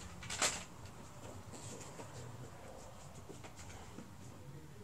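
Faint rustling and handling noises, with one sharper click or knock about half a second in.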